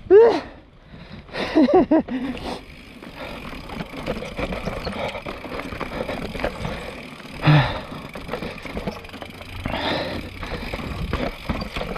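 Giant Reign mountain bike rolling down a dirt singletrack: tyre noise over dirt and stones, the bike rattling, and wind on the action camera's microphone. A few short pitched squeaks in the first two seconds, and a sharp knock about seven and a half seconds in.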